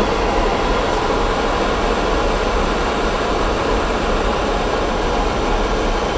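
Steady rushing noise inside the cockpit of an Airbus A300-600 in flight: the airflow and air-conditioning noise of the flight deck, even in level throughout.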